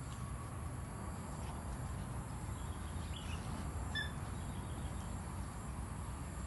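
Outdoor ambience: a steady low rumble with a few faint short bird chirps about three and four seconds in.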